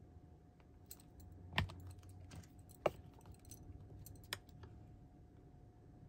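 Scattered light taps and clicks of a glue bottle, paper pieces and a small tool being handled on a craft desk, with a louder knock about a second and a half in and a sharper one near three seconds, over a faint steady hum.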